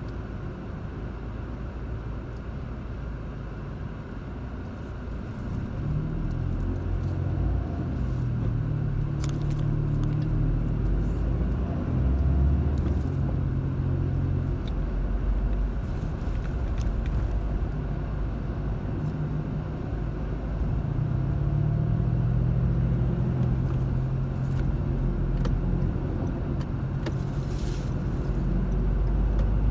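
Car engine and road noise heard from inside the cabin. It is a low, steady hum while the car waits in a traffic queue. The engine rises in pitch and gets louder as the car pulls away about six seconds in, and again about twenty-one seconds in.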